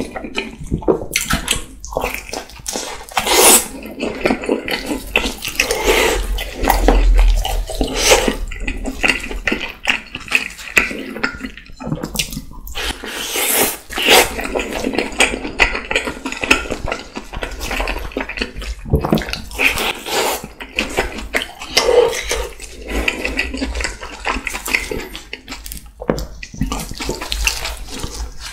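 Loud, wet chewing and lip-smacking of a slice of pizza close to the microphone, a dense, irregular run of clicks and crackles.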